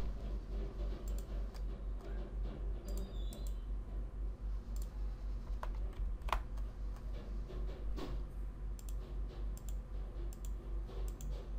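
Faint, scattered clicks of a computer mouse and keyboard, single or in short runs, with one sharper click a little past the middle. A steady low electrical hum runs underneath.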